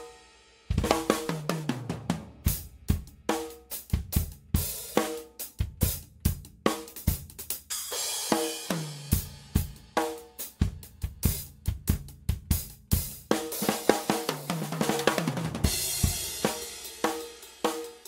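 Tama Starclassic birch drum kit played in a steady groove of kick, snare and hi-hat, with tom fills that step down in pitch and crash cymbal washes. Close- and room-miked. A brief pause about half a second in, then the playing resumes with a tom fill.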